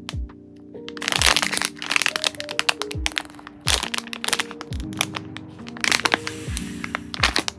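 Thin clear plastic bags crinkling and crackling as hands handle them and pull squishy toys out, in repeated sharp crackles with longer rustling bursts. Under it runs soft background music with a steady kick-drum beat.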